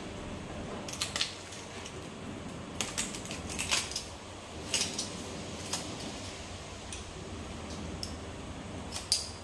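Dishes and utensils being handled in a kitchen: a scattered series of light clinks and knocks over a steady low background noise.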